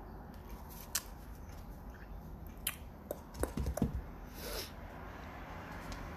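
Thin Bible pages being leafed through by hand: scattered light paper flicks and rustles, a quick cluster of them a little past the middle, then a short swish.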